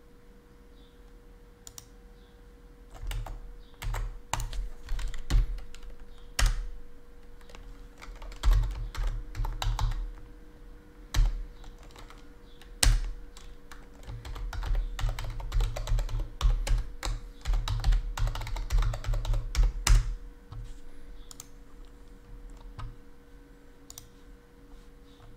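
Typing on a laptop keyboard: bursts of quick key presses with short pauses, busiest in the middle and thinning out to a few single key taps near the end. A faint steady hum sits underneath.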